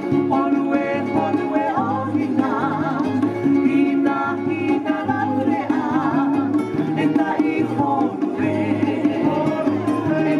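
Recorded Tahitian dance music played over the stage loudspeakers: a song with a singing voice and plucked strings over a steady, repeating bass beat.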